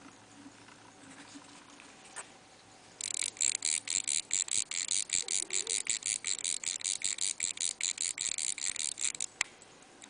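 Crown winding of a circa-1905 IWC pocket watch movement: a rapid run of crisp ratchet clicks, about seven or eight a second, starting about three seconds in and lasting some six seconds.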